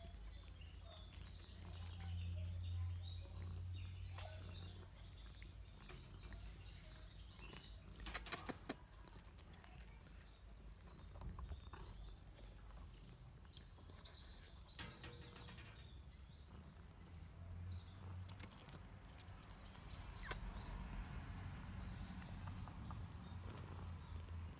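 Faint outdoor background with scattered small bird chirps over a low steady hum. A few sharp clicks come about 8 seconds in and again about 14 seconds in.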